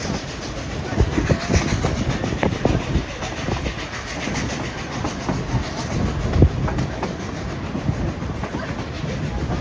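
Narrow-gauge steam-hauled passenger train in motion, heard from one of its coaches: a steady rumble of wheels on rail with irregular clacks and knocks over the track.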